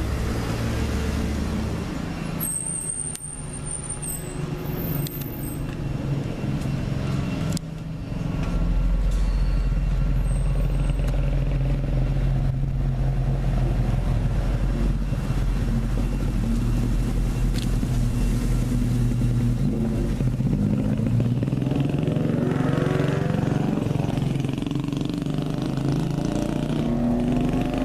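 Road traffic: a motor vehicle engine runs steadily close by, getting louder and heavier about eight seconds in.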